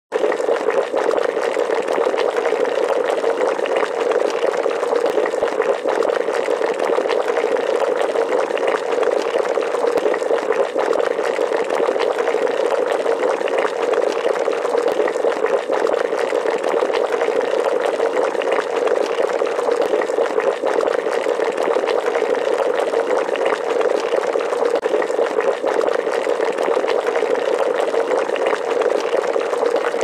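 Water boiling hard: a steady, dense bubbling full of small pops and gurgles.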